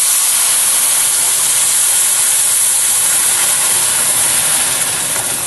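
Hot water hitting semolina just roasted in hot ghee in a pan, giving off a loud, steady hiss and sizzle of steam that eases slightly near the end.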